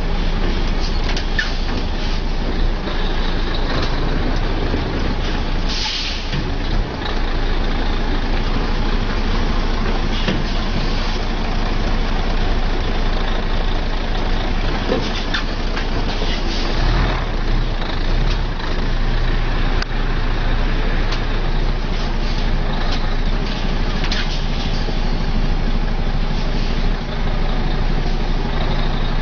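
A heavy loaded logging truck's diesel engine running at low speed while it manoeuvres, with a short hiss of released air about six seconds in.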